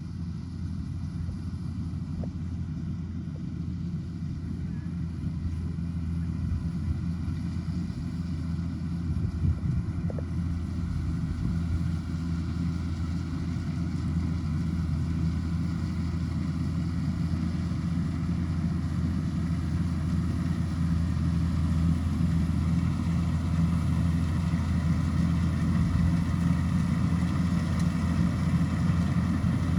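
Kubota DC105X combine harvester's diesel engine running steadily, slowly growing louder.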